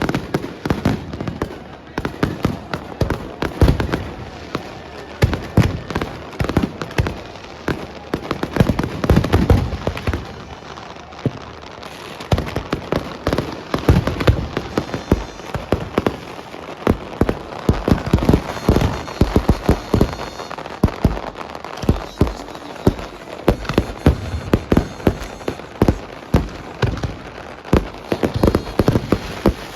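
Fireworks going off continuously: many sharp bangs and crackles in rapid, irregular succession, overlapping one another.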